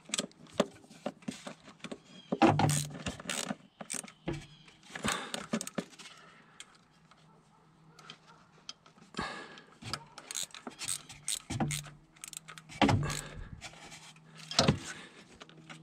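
Small hand ratchet clicking in short bursts of quick clicks as it turns a bolt, with metal clinks of the socket and tool between the bursts.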